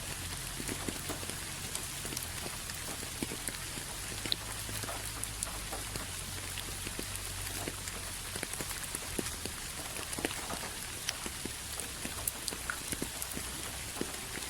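Steady rain, with many separate drops ticking and splashing close by.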